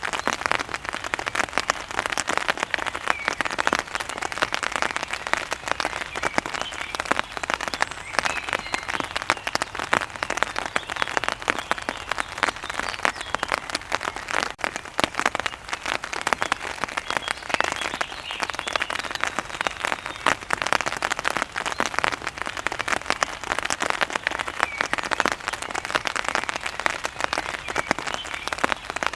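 Steady, dense rain pattering on a surface, with faint bird chirps now and then.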